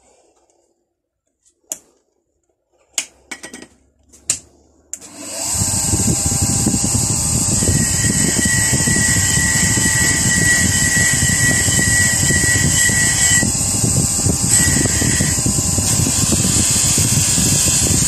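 A bench grinder fitted with stacked non-woven abrasive wheels is switched on about five seconds in after a few clicks, spins up and runs steadily. A small banjo oiler is pressed against the wheels, adding a steady high squeal for several seconds as the worn chrome is abraded back to brass.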